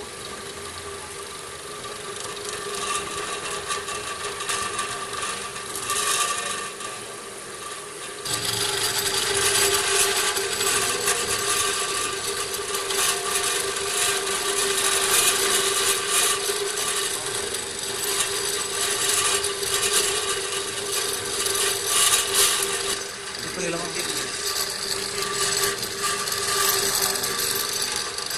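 Friction stir welding machine running: a steady motor hum and whine under the rotating tool grinding and rubbing against aluminium plate, the scraping growing much louder about eight seconds in as the plate is fed along by a hand-cranked lead screw.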